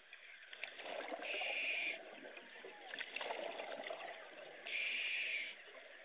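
Scuba regulator breathing underwater: a hissing inhale about a second in and another near the end, with bubbly exhalation between them.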